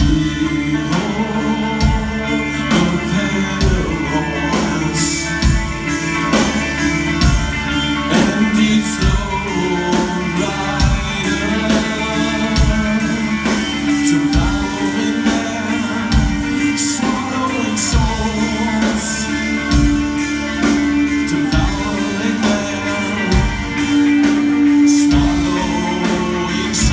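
Live rock band playing: a singer over electric guitar, bass guitar and drums, with a steady drum beat.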